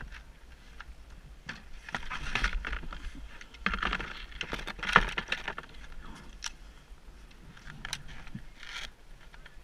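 Scraping, rustling and clicking of ski jumping skis and gear being handled on snow and a wooden start platform, busiest in the middle with one sharp click about five seconds in.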